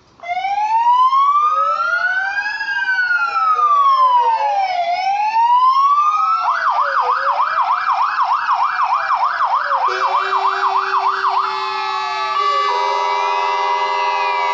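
Sirens of several fire engines start together, their slow wails rising and falling out of step with one another. About six seconds in one switches to a fast yelp, and from about ten seconds steady horn tones join in.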